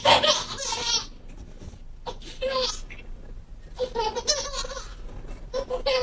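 A baby laughing in short high-pitched bursts, about four of them, each under a second long.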